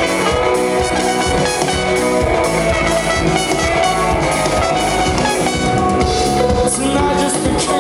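Live band playing: a drum kit keeping a steady beat under electric guitar and bass, heard loud and roomy.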